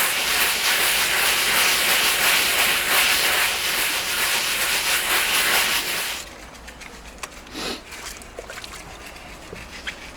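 Steady rasping of a hand tool rubbing over fresh mortar on a wall, which stops abruptly about six seconds in, leaving a few faint knocks.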